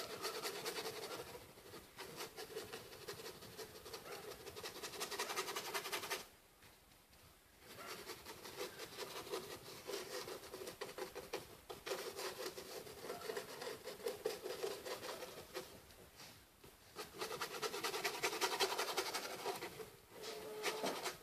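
Paintbrush scrubbing watered-down paint onto a cardboard surface in quick back-and-forth strokes. It comes in stretches of several seconds, with short pauses about six seconds in, around the middle, and near the end.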